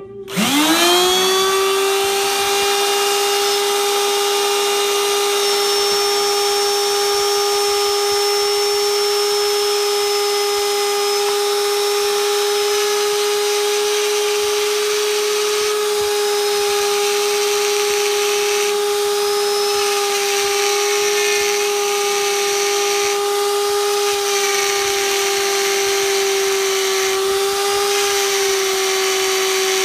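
Electric die grinders spinning up with a sharply rising whine, then running at a steady high whine at full speed. A rotary burr is being ground against a grinding stone in the second grinder to hollow a dip into its tip.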